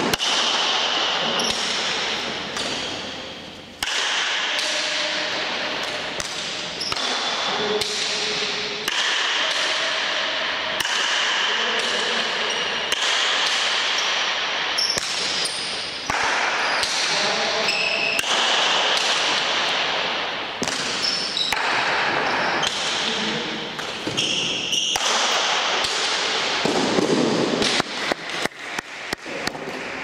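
Basque pelota paleta rally: the ball cracks again and again off the wooden paletas and the fronton walls, each hit ringing on in the hall. Near the end comes a quick run of sharp knocks.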